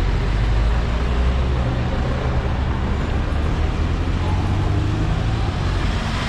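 A low, steady motor-vehicle engine rumble mixed with street traffic noise.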